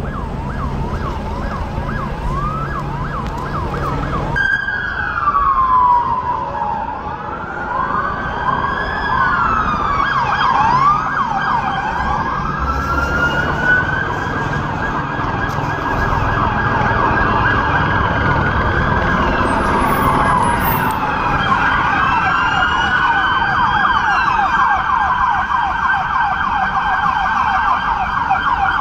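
Several emergency-vehicle sirens sounding at once, their wails overlapping and sweeping up and down, turning to faster yelping cycles over the last few seconds, over a low rumble.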